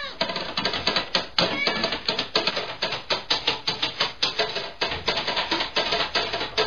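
Large cat exercise wheel clattering as a cat runs in it, with rapid, irregular knocks at about four to six a second.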